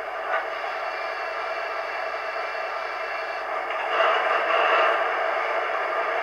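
Sound-decoder diesel engine sound of a Roco H0 model class 118 locomotive standing at idle, played through its small built-in speaker. It is thin and steady, with a brief click about half a second in, and it grows louder for about a second around four seconds in.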